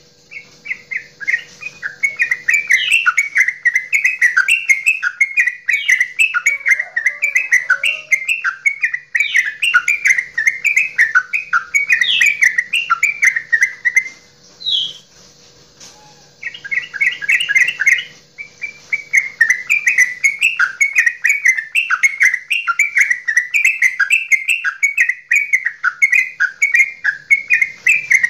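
Yellow-vented bulbul (trucukan) singing its long, fast bubbling chatter, the loud 'goklik' song prized by keepers. The song breaks off about halfway through, with only a single note, then resumes with a short burst and runs on steadily.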